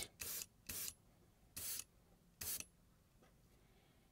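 Airbrush spraying paint in four short bursts of hiss, each a fraction of a second long, about half a second to a second apart.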